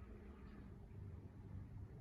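Near silence with a faint, steady low rumble of outdoor background.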